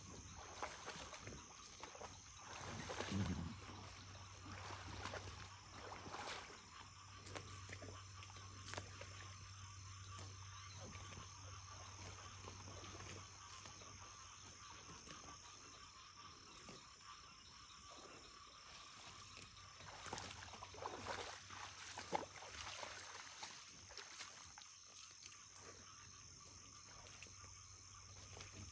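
Faint marsh ambience: a steady chorus of frogs and insects, with scattered soft rustles and splashes from the bison bison feeding in shallow water and rushes. These are louder about three seconds in and again about two-thirds of the way through.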